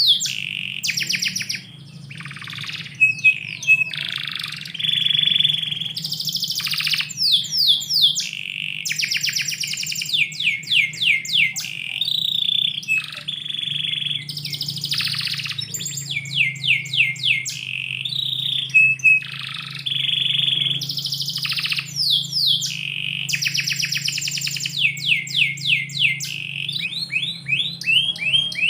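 Domestic canary singing a long, continuous song: rapid trills of fast repeated sweeping notes alternating with held whistled tones.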